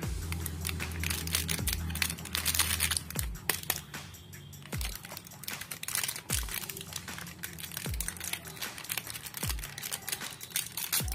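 A crinkly metallised foil snack wrapper being picked at and peeled open by hand, giving a dense run of small crackles and clicks. Background music with a slow, deep drum beat about every one and a half seconds runs underneath.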